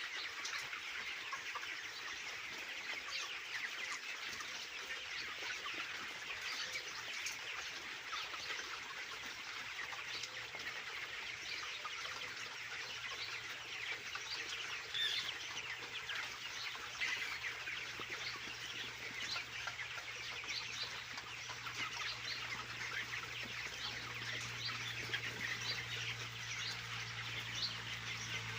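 A large flock of broiler chickens, about 30 days old, clucking and peeping over one another in a continuous dense chatter. A low steady hum comes in about a third of the way through and grows louder near the end.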